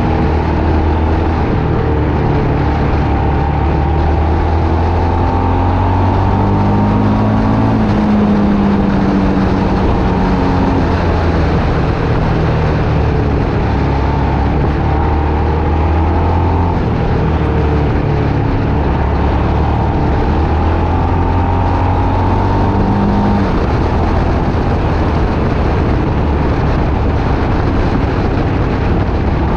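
Motorcycle engine running under load, its pitch rising and falling again and again with throttle and gear changes through the bends, over a steady rush of wind.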